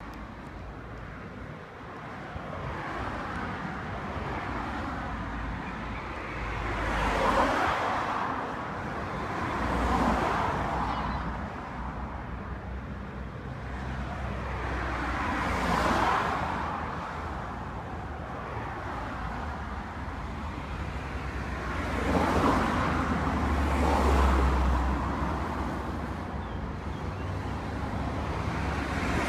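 Road traffic on a dual carriageway: a steady low rumble, with vehicles passing close by about five times, each pass a rise of tyre and engine noise that fades away again.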